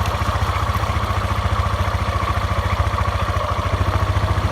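Single-cylinder four-stroke motorcycle engine running at a steady, even beat at an unchanging speed, heard close up from the bike.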